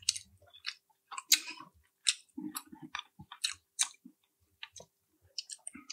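Close-miked chewing of food: a person eating with irregular wet clicks and soft crunches.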